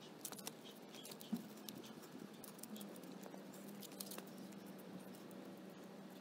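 Hands working a webbing strap and its fittings against a motorcycle frame: faint scratching and small scattered clicks, with one sharper knock about a second and a half in.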